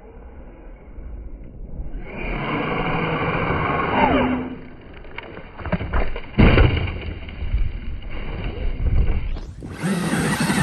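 Electric RC truck driving hard through snow: its motor whines and the pitch falls as it slows about four seconds in. A few heavy thumps follow partway through, with more driving noise near the end.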